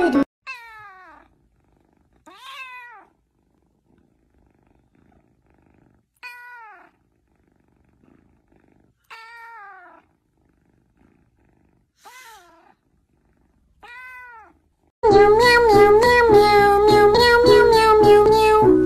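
A kitten meowing six times with pauses between, each meow falling in pitch. Loud background music with a steady beat comes in near the end.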